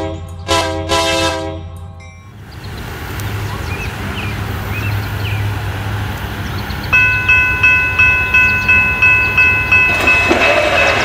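A train horn sounds in several short blasts for the first two seconds. After that, birds chirp over a low outdoor hum. About seven seconds in, a railroad crossing bell starts ringing steadily at about two or three strokes a second, and near the end the approaching BNSF freight train grows louder beneath it.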